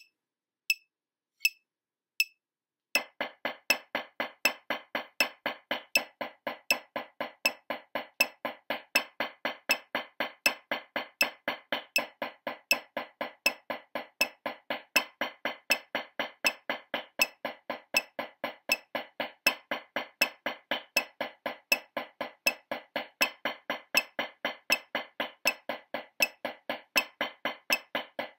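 Four sharp clicks about 0.7 s apart count off. About three seconds in, wooden drumsticks start an even stream of alternating strokes on a drum practice pad, the slow 'Eights' rudiment exercise, and keep it up at a steady tempo.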